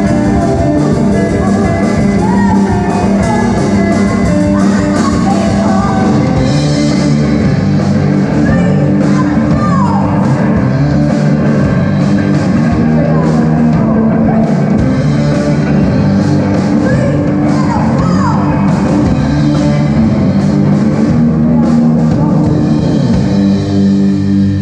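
Live rock band playing loud: electric guitar, bass guitar and drum kit, with a woman singing into a microphone. Her voice slides in pitch here and there over the steady beat.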